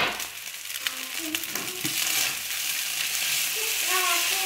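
Fried rice with vegetables sizzling in a hot frying pan, stirred and scraped with a wooden spatula; the sizzle grows louder about two seconds in.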